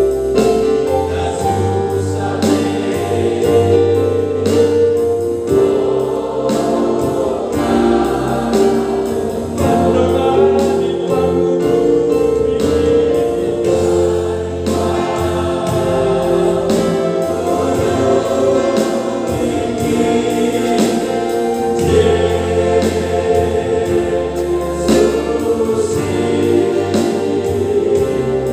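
A hymn sung by voices together, with electronic keyboard accompaniment keeping a steady beat.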